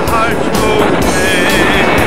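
Country-style song in an instrumental passage between sung lines, with a wavering lead melody near the start and again in the second half.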